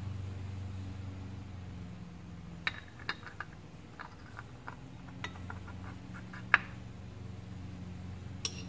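Steel bucket lifters being set by hand into the lifter bores of a Subaru EJ25 aluminium cylinder head: a string of light metallic clicks and clinks starting about three seconds in, the loudest about six and a half seconds in. A steady low hum runs underneath.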